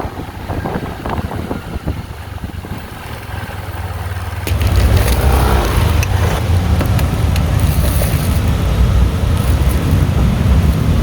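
Road vehicle noise with a low rumble, as of wind buffeting the microphone while on the move. It gets much louder about four and a half seconds in.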